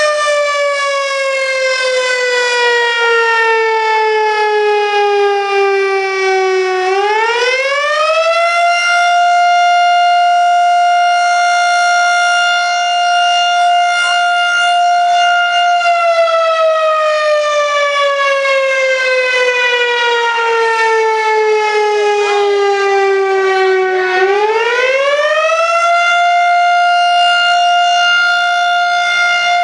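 Extremely loud town fire-alarm siren wailing. Its single tone slides slowly down for several seconds, then sweeps quickly back up and holds steady, and this happens twice.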